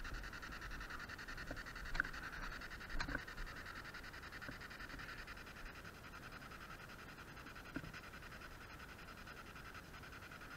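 A few scuffs and knocks of footsteps on rough ground, over a steady high-pitched hiss.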